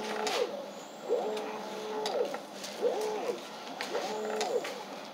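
A small motor whining in repeated cycles, about four or five of uneven length: each time it speeds up, holds a steady pitch, then slows down. A few light clicks fall between the cycles.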